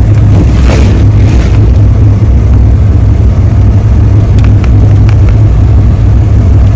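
Truck driving, heard from inside the cab: a loud, steady low engine and road drone, with a few faint clicks.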